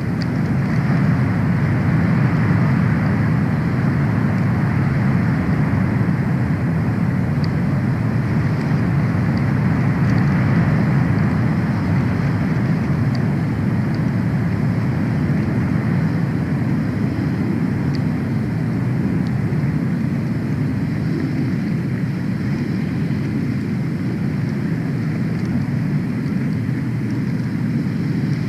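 Steady rushing wind noise on an outdoor nest-camera microphone, swelling slightly in gusts, with a few faint high ticks.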